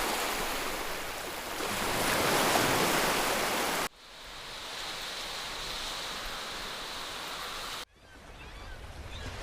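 Sea water washing and rushing with wind noise, in three short stretches that cut off abruptly, the first the loudest.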